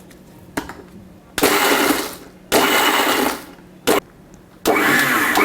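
Small electric blender pulsed in several short bursts, grinding broken digestive biscuits into a coarse powder. The first burst comes about a second and a half in, and the last starts near the end.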